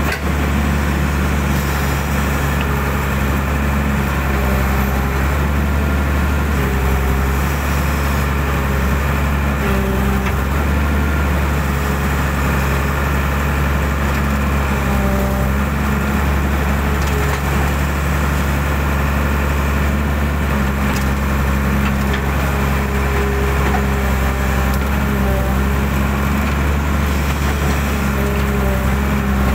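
Hydraulic excavator's diesel engine running steadily under load while digging out a ditch, with higher whining tones that come and go as the hydraulics work.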